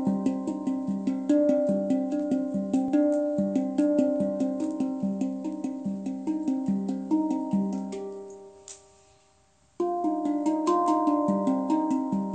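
Instrumental background music: melodic notes struck in a quick, even pattern. It fades out about 8 seconds in, falls almost silent for a moment, then starts again.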